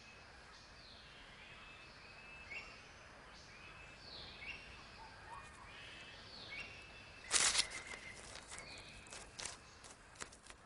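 Forest ambience of repeated bird-like chirps, each dropping in pitch and then holding briefly. A sudden loud noise comes about seven seconds in, followed by scattered clicks.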